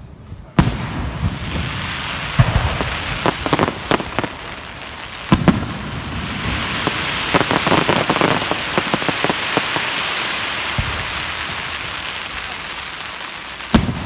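Aerial fireworks bursting: a sharp bang about half a second in, several more bangs over the next few seconds, then a long dense crackling from about seven seconds on, and another bang near the end.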